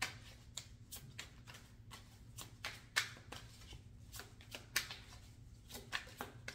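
Tarot cards being shuffled and handled: irregular sharp card snaps and slaps, about two or three each second.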